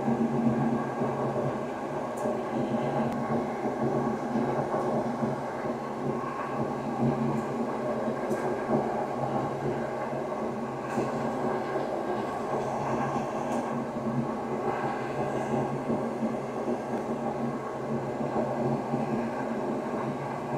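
A steady mechanical drone with a low hum, with a few faint small clicks.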